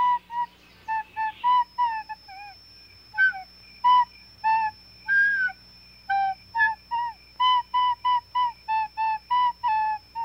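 A high, flute-like wind instrument playing a quick run of short, separate notes, some sliding down in pitch at the end, with a faint steady high whine underneath from about a second and a half in.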